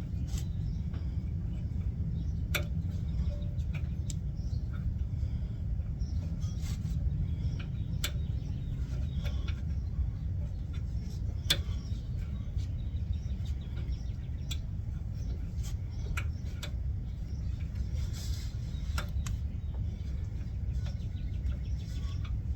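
Scattered sharp clicks and clinks of hand tools and metal parts, as a cotter pin and nut are worked on a car's steering linkage, over a steady low rumble.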